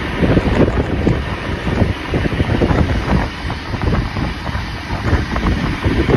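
Wind buffeting the microphone over the running noise of a steam-hauled train, with uneven gusts throughout.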